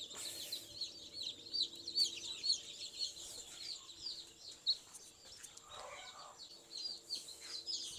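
Chicks peeping, a steady stream of many short, high, falling peeps, faint, over the low steady hum of running egg incubators.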